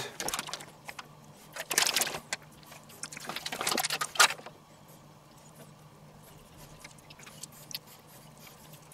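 Kitchen handling noise as shredded mozzarella is pressed into a pork loin in a stainless steel roasting tray: a few bursts of rustling and light clatter over the first four seconds, then only a faint steady low hum.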